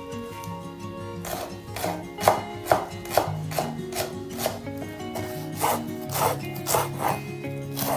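Chef's knife chopping fresh parsley on a wooden cutting board: a steady run of crisp chops, about two or three a second, that picks up about two seconds in. Soft background music plays underneath.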